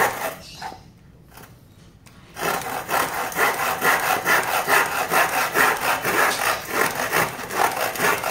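Hand saw with triple-ground teeth cutting a very dry wooden batten, going through it fast. A few strokes, a pause of about a second and a half, then quick, steady back-and-forth strokes to the end of the cut.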